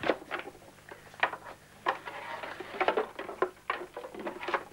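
Irregular knocks and clatter of wooden hobby-horse sticks as they are put back into a rack against a wooden fence.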